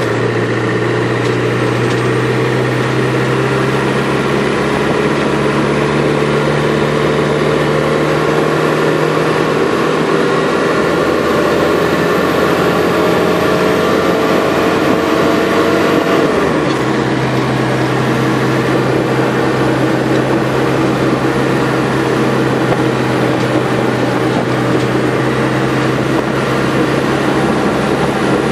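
Beach buggy's engine running steadily under way, heard from on board, with the rush of driving over sand. Its note climbs slowly, then drops suddenly about sixteen seconds in and holds steady.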